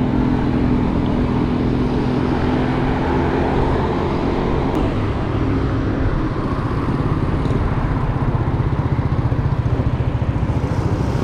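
Street traffic noise from motor vehicles, heard from a moving bicycle as a dense, steady low rumble that flutters quickly over the last few seconds.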